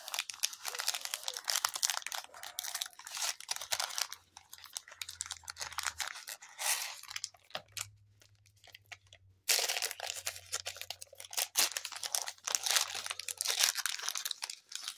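A 2022 Chronicles baseball card pack being torn open: its shiny plastic wrapper crinkles and tears in the hands. There is a pause about halfway through, then more crinkling and tearing.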